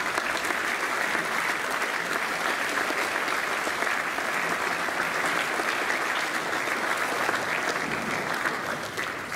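Sustained applause from a large audience of seated students, many hands clapping at once, easing off near the end.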